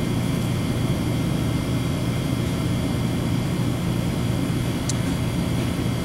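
Steady low hum of running HVAC equipment, with a faint click about five seconds in.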